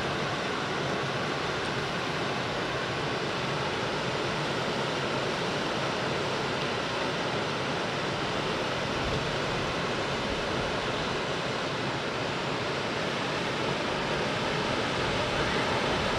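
Creek water rushing steadily over rocks and small riffles.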